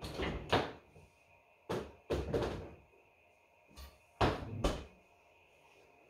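Kitchen doors being opened and shut: a run of sharp knocks and bumps in three clusters, at the start, about two seconds in, and a little after four seconds.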